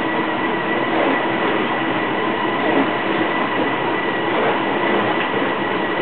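Steady hum and hiss of a running machine, with a thin constant high whine over it.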